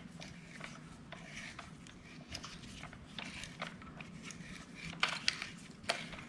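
Small metallic clicks and scrapes of long-nose vice grips turning a nut down onto a lock washer on a motorcycle driveline, with a few sharper clicks about five seconds in, over a steady low hum.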